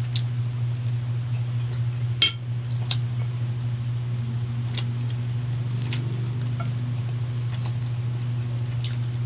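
A person eating by hand from a plate makes scattered light clinks and clicks of dishware, the loudest a little after two seconds in. A steady low hum runs underneath.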